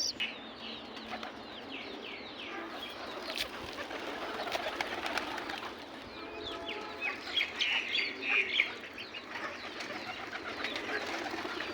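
Domestic pigeons cooing, mixed with a busy chatter of short, high chirps from other birds; the chirping gets louder in the second half.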